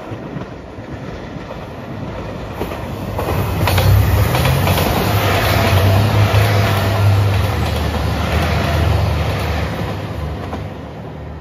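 JR Shikoku 2700 series diesel limited express train passing close by: a low diesel engine hum under the rumble of wheels on the rails. It builds up, is loudest through the middle as the cars go by, and fades near the end.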